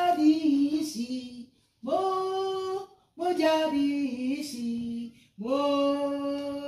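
A woman singing unaccompanied, in four short held phrases that step down in pitch, with brief breaks between them.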